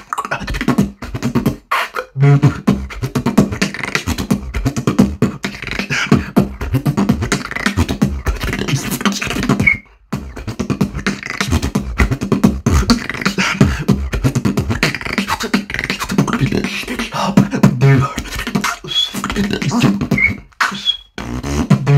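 Solo vocal beatboxing: a fast, dense beat of mouth-made kicks, snares and clicks over low hummed bass tones, with a brief break about ten seconds in and a few short high chirps near the end.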